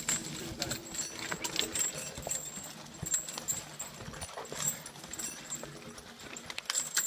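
Hooves of a working horse and people's footsteps on a dirt forest track as the horse drags a log, an irregular run of knocks and scuffs.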